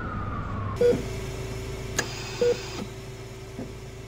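A whistling tone slides down in pitch and cuts off just under a second in, a cartoon falling whistle. A hospital heart monitor then beeps about every second and a half, three times, over a steady low tone.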